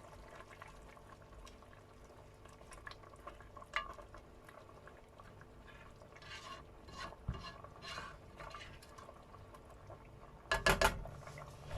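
A pot of pork caldereta with potatoes and carrots being stirred, a utensil scraping and clicking against the pot, with a louder clatter near the end.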